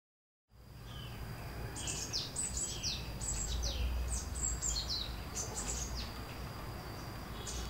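Birds chirping in short, repeated downward-sliding calls for several seconds, over a low steady rumble of street ambience and a thin steady high tone. It fades in after a moment of silence.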